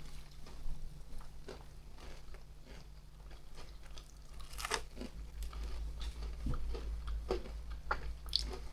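Someone biting and chewing crispy flour-coated fried chicken, with scattered short crunches over a steady low hum.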